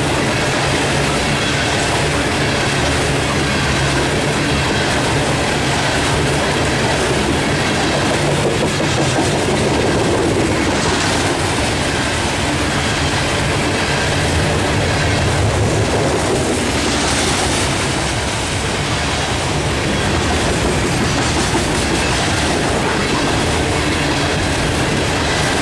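Loaded coal hopper cars of a freight train rolling past: a loud, steady rumble and clatter of steel wheels on the rails.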